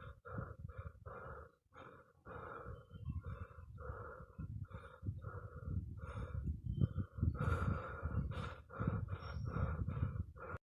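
Rapid panting: short, quick breaths in and out, about three a second, growing louder around two-thirds of the way through.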